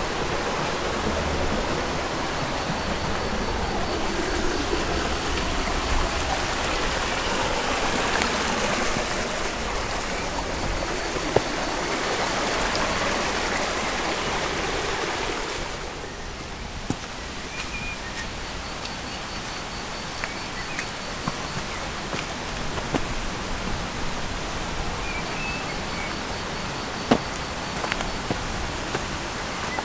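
Steady rushing of a small forest stream running over stones, which drops somewhat about halfway through. A few sharp clicks and some short high chirps sound over the water in the second half.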